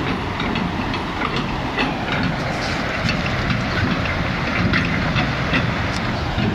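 Fast-flowing Danube floodwater rushing past: a steady noisy rush with many small splashing ticks scattered through it.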